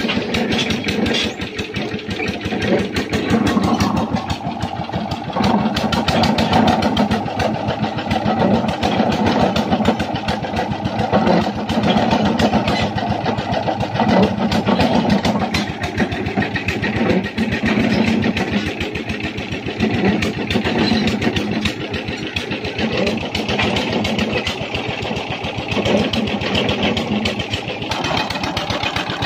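Small engine of a traditional tubewell drilling rig running steadily, with a fast, even firing beat. It powers the rig's winch drum.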